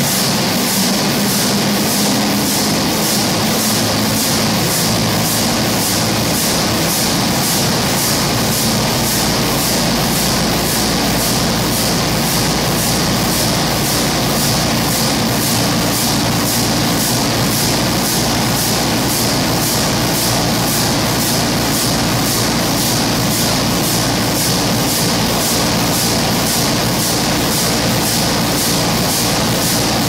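Burmeister & Wain DM884WS-150 eight-cylinder two-stroke marine diesel engine running slowly, a steady heavy rumble with an even, rhythmic beat of strokes.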